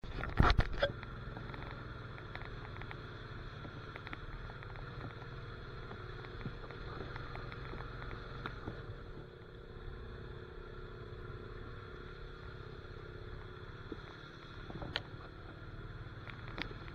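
Honda Rancher ATV's single-cylinder engine running steadily while under way. There are a few loud knocks in the first second and a couple of short thumps near the end.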